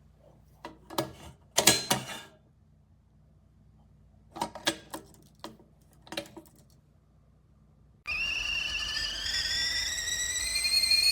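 A few sharp clicks and knocks come in two short clusters. Then, about eight seconds in, the Pykal stainless steel stovetop kettle starts to whistle suddenly. The whistle is shrill, made of several tones that slowly rise in pitch, and it is the loudest sound.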